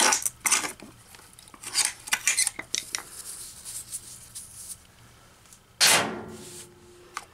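Metal clicks and scraping as a thin tool pries an electric cooling-fan motor's magnet and its metal retaining clip out of the steel housing. About six seconds in, the thrown magnet strikes a metal locker with one loud ding that rings on for over a second.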